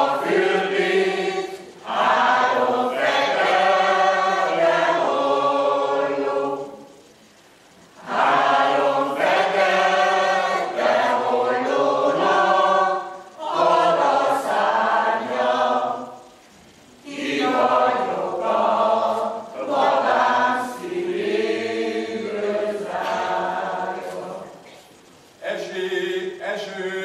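Mixed choir of men's and women's voices singing a Hungarian folk song unaccompanied, in long phrases with short breaks for breath between them.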